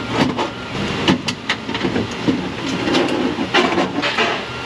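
Metal window regulator knocking and rattling against the inside of a car door shell as it is turned and worked into place: a quick, uneven run of clanks and scrapes.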